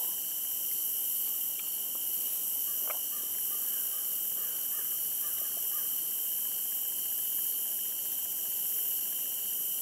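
Steady chorus of insects, such as crickets and katydids, trilling in several high-pitched bands.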